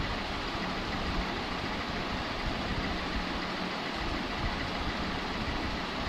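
Steady background noise with a faint hum, even throughout with no distinct events.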